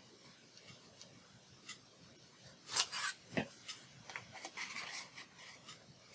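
Large arthritis scissors cutting paper: scattered sharp snips and clicks, the loudest close together about three seconds in with a duller knock just after, then a spell of paper rustling.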